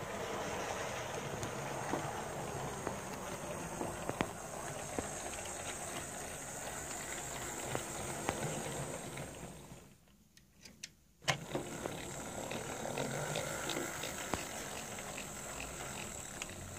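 Hornby model diesel shunter's small electric motor whirring steadily as it runs along the track hauling a van, with occasional clicks from the wheels over rail joints. The sound drops away for about a second just past the middle, then returns with a sharp click.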